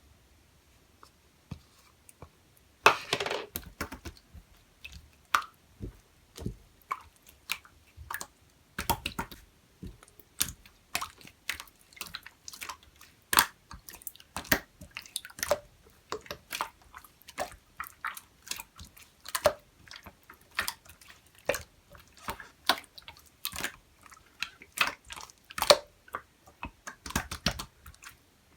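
Clear slime being squished and pressed by hand, giving many irregular wet clicks and pops as air pockets burst.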